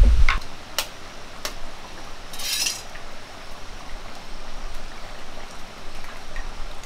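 Eggs being cracked over an iron wok of simmering curry: a few sharp taps of a knife on the shells, then a short hiss about two and a half seconds in, over the faint steady simmer of the curry.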